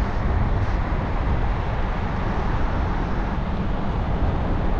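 Pickup truck driving on the highway: a steady low rumble of road and engine noise with tyre hiss, even throughout.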